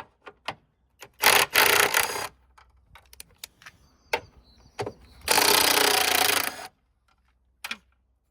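Power impact wrench running in two bursts of about a second each, about a second in and again about five seconds in, on the nut at the top of the front strut mount. Short metallic clicks and taps come between the bursts.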